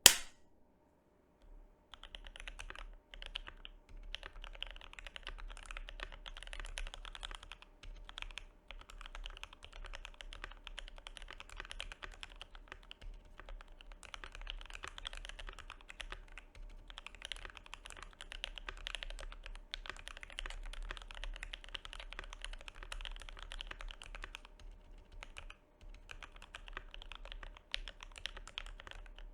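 Typing on a GMMK Pro mechanical keyboard fitted with HHHH H1 linear switches on an aluminium plate, with case and PCB foam and ePBT keycaps: a fast, irregular stream of key clicks with a few short pauses. A single sharp pop sounds at the very start, before the typing begins about two seconds in.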